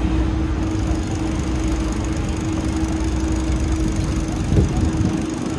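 River boat's engine running steadily, heard from aboard: a low rumble with a steady hum, plus a brief louder bump near the end.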